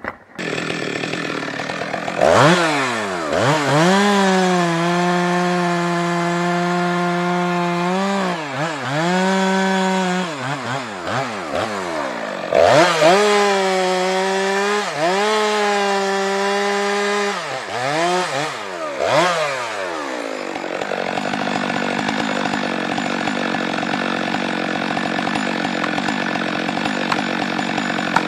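Stihl MS 462 two-stroke chainsaw cutting spruce at full throttle in two long cuts of several seconds each, the engine note dropping briefly between them. It then idles steadily.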